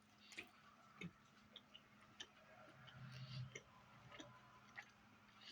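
Faint chewing of a chicken wrap, with scattered soft, irregular mouth clicks and smacks.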